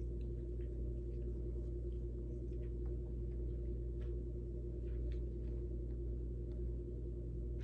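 Room tone: a steady low hum with one constant tone in it, and a few faint, brief ticks over it.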